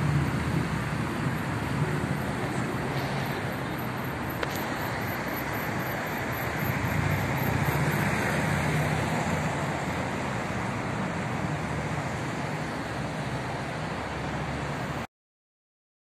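City street traffic: a steady hum of cars going by, swelling as vehicles pass, cutting off suddenly near the end.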